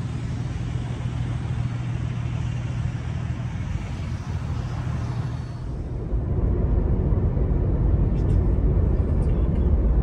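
Car driving, a steady engine and road hum. About six seconds in it changes to the heavier low tyre-and-road rumble heard inside the cabin at expressway speed.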